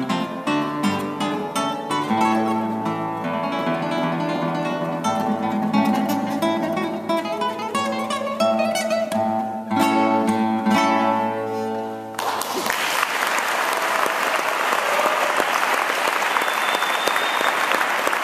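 Nylon-string classical guitar played solo, plucked notes and ringing chords closing a piece. About twelve seconds in the music stops and an audience applauds steadily.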